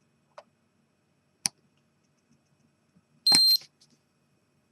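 A couple of small clicks, then a short single electronic beep from the repaired Dimika camera's speaker about three seconds in. The beep signals the camera powering up and working again after its board was reflowed.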